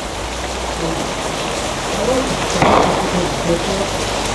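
Steady rain pattering on wet surfaces, with a low rumble underneath and a louder swell about two and a half seconds in.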